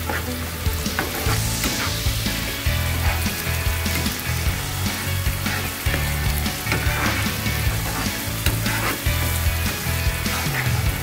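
An onion-tomato masala thinned with water sizzling and bubbling in a nonstick frying pan as it is cooked down, stirred with a slotted spatula that scrapes across the pan again and again.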